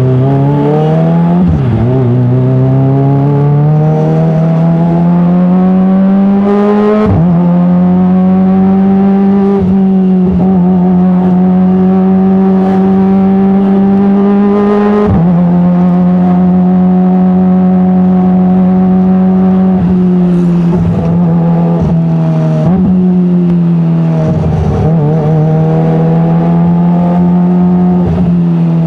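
Kawasaki ZX-25R's inline-four engine running loud through an Arrow titanium full-system exhaust. The pitch climbs over the first several seconds, with one sharp drop early on, then holds steady for long stretches broken by a few short dips.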